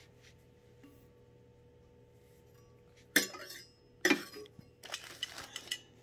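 Corrugated stainless-steel exhaust hose from a diesel air heater kit being bent and handled: two sharp metallic clinks with a brief ring, about three seconds in and again a second later, then lighter metallic rattling.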